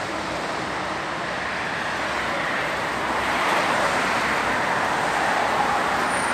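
Road traffic noise from cars passing on a city street: a steady hiss of tyres and engines that swells to its loudest a few seconds in.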